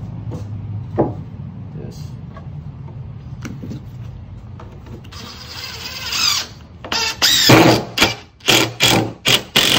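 DeWalt cordless driver driving screws into a 2x4 block: a run of about a second starting about five seconds in, a longer run, then about five short pulses as the screw is snugged down.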